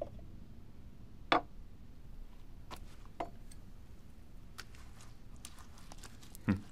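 A few light knocks and taps from a fake severed arm being picked up and handled on a wooden table, the sharpest about a second in and another near the end, over faint room tone.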